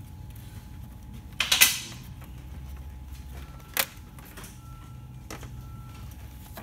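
Hands handling a plastic intercooler cover and its wiring in an engine bay: a short scraping rustle about one and a half seconds in, then two sharp clicks of plastic parts.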